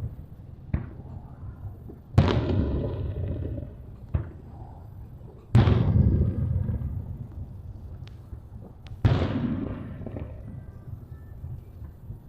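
Aerial fireworks shells bursting: three loud booms a few seconds apart, each rolling away in a long echoing rumble, with a couple of smaller pops between them.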